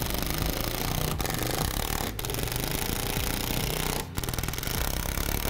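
Ridgid cordless impact driver hammering as it drives screws through the tabs into a plastic panel. It is a fast, continuous rattle with three very short breaks, about one, two and four seconds in.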